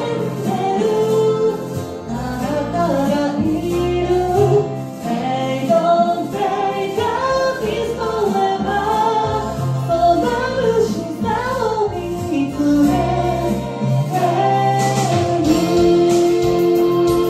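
Solo voice singing a Japanese pop ballad over a karaoke backing track, ending on a long held note near the end.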